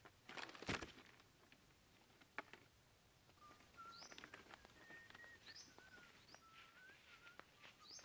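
A brief rustling thump as the cardboard-box pigeon trap's flaps fall shut, about half a second in. From about three seconds in, wild songbirds sing faintly: short whistled notes and quick rising chirps.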